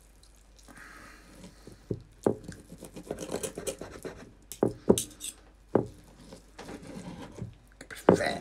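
Knife and fork cutting a cooked stuffed fillet on a wooden board: soft scraping and rubbing, with several sharp clicks of the metal cutlery against the board.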